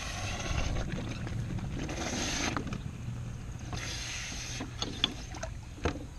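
Freshly cast, still-hot aluminum casting held in tongs and quenched in a tub of water: three bursts of hissing sizzle about two seconds apart as it is dunked, with water sloshing. A couple of sharp clicks near the end.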